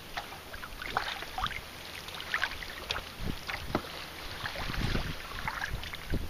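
Water lapping and splashing against a kayak's hull, with irregular drips and small splashes, and a low rumble of wind on the microphone.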